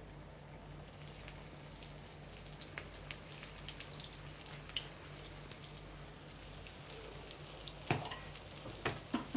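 Potato patties (aloo tikki) shallow-frying in oil on a flat tava: a soft, steady sizzle dotted with small crackles and pops. A few louder clicks and knocks come near the end.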